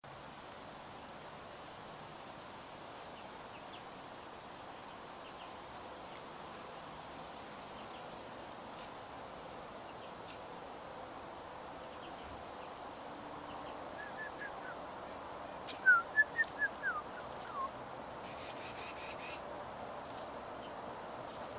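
Small songbirds calling: a few thin, high chips scattered through the first eight seconds, then about sixteen seconds in a loud run of about seven quick downslurred whistled notes, over a steady background noise.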